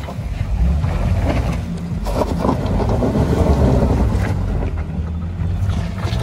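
Jeep Cherokee KL's engine running under load as it crawls up a steep, rutted dirt-and-rock slope, with its tyres working over loose dirt and rock. Wind rumbles on the microphone throughout.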